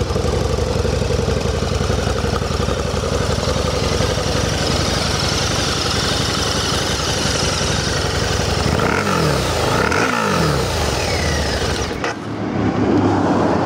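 2015 Harley-Davidson V-Rod Muscle's 1250 cc liquid-cooled, fuel-injected V-twin running through its quiet exhaust, then revved up and back down twice in quick succession about two-thirds of the way through.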